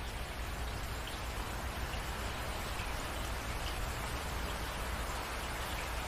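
Steady rainfall: an even hiss of many drops, with a few single drops ticking out above it.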